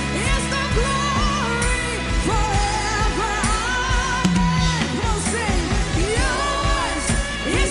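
Live worship music: a band with a steady drum beat and sustained chords, and a singer's voice gliding over it.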